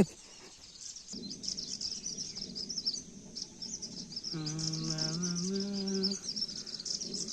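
Many small birds chirping and twittering together, a busy stream of rapid high chirps. A sharp click opens it, and about halfway through a low, steady pitched hum, stepping up slightly in pitch, sounds for about two seconds.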